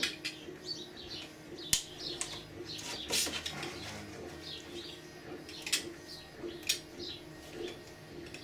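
Utility knife blade scoring around the raft of a 3D-printed ABS part, with several sharp clicks and scrapes as the blade cuts the plastic. Birds chirp in the background.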